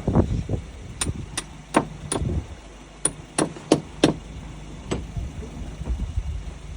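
Eight sharp knocks in two sets of four, about three a second, then one fainter knock, over a low steady hum.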